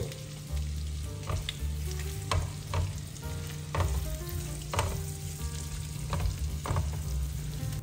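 Shrimp and garlic sizzling in melted butter in a frying pan, stirred with a silicone spatula in strokes about once a second.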